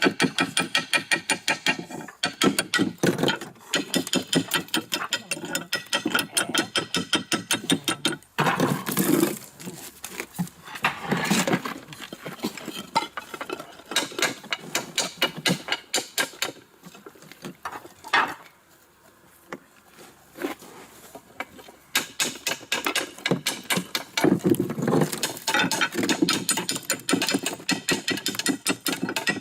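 Machinery clattering with rapid, evenly repeated knocks, several a second, broken by a short quieter stretch about two-thirds of the way through.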